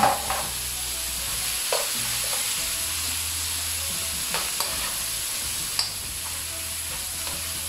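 Chicken livers, onion and chopped tomato sizzling in a frying pan as a metal spoon stirs them, with a few sharp clicks and scrapes of the spoon against the pan.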